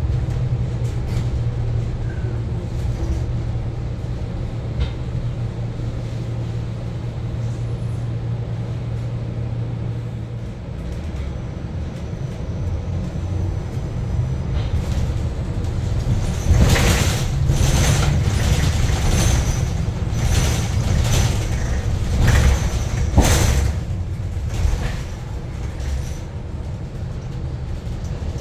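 Cabin ride noise of a New Flyer XE60 battery-electric articulated bus in city traffic: a steady low hum at first, then a run of sharp knocks and rattles in the middle, with a faint high whine from the electric traction motors. The air conditioning is off, so the traction motors are plainly heard.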